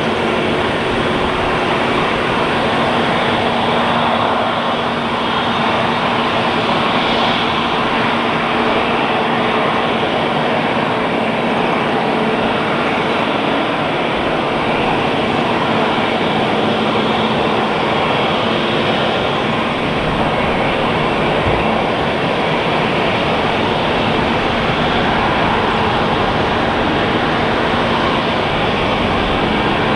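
Airbus A320 jet engines running steadily at low thrust, a continuous loud rush with a faint steady hum underneath.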